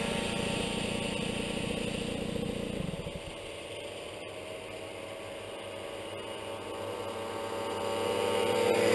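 Two-stroke 50cc moped engine buzzing away into the distance and fading, then the engines of two more mopeds approaching, growing louder near the end.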